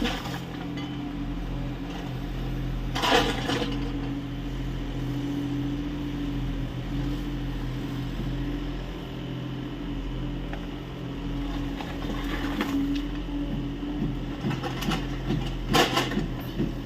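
Kubota U30 mini excavator's diesel engine running steadily while it digs earth, with a brief clatter about three seconds in and again near the end.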